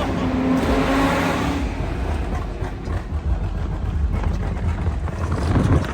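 Dodge Charger Scat Pack's 392 (6.4-litre) HEMI V8 under way, rising in pitch as it accelerates for the first second and a half, then running on more evenly, with a brief surge just before the end.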